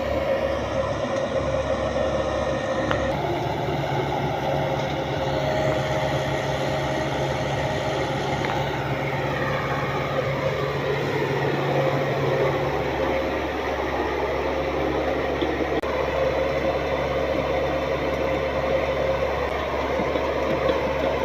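Heavy construction machine's engine running steadily, with a steady high whine over it. The sound changes abruptly about three seconds in and again past the middle.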